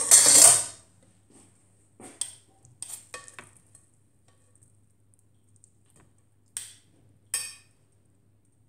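Kitchen utensils clattering while a meal is served: a short loud clatter at the start, then a few separate clinks and scrapes of a metal spoon against a plastic mesh strainer and a plate as broccoli is dished out, with quiet gaps between.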